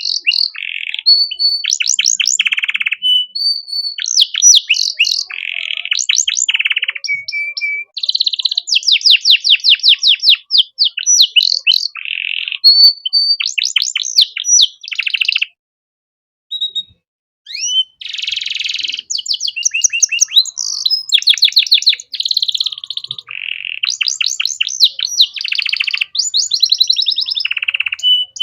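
Male domestic canary singing vigorously: a long, varied song of rapid trills and fast repeated high notes, with a short pause a little past halfway before the song resumes.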